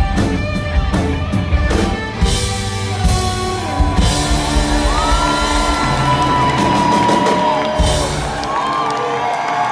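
Live rock band with saxophone closing out a song: hard drum hits for about the first two seconds, then a held final chord with crashing cymbals ringing out. The crowd whoops and whistles over it, and the band's low end cuts out near the end.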